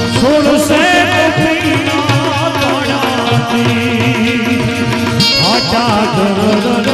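Indian devotional bhajan music, instrumental: tabla keeping the rhythm, with gliding bass-drum strokes, under a wavering, ornamented melody line.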